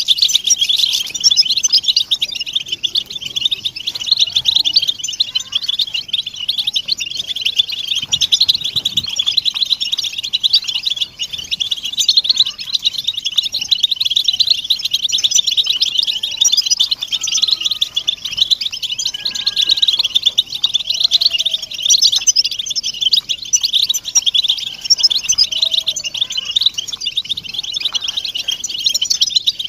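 A flock of European goldfinches twittering and chattering together in a dense, unbroken mass of high calls, with a few fainter whistled notes mixed in. This is group chatter of the kind played to stir captive male goldfinches into song.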